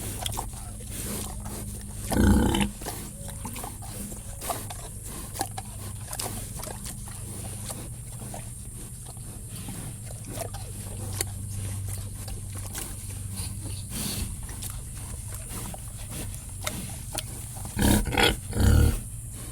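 Pigs grunting in a sty: a steady run of low grunts with short clicks and rustles, and a few louder grunts about two seconds in and twice near the end.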